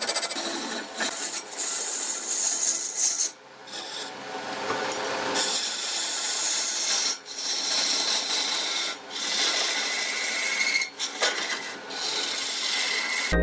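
A tool rasping against wood turning on a wood lathe: a steady rough hiss broken by a few short pauses.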